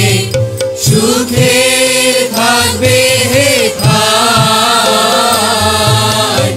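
Music: a slow Bengali devotional hymn, a voice singing long wavering notes over a steady sustained accompaniment.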